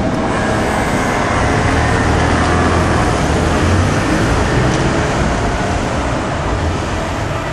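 Road traffic moving over a busy railway level crossing: a steady wash of engine and tyre noise. The low engine rumble of a heavy vehicle swells in the middle.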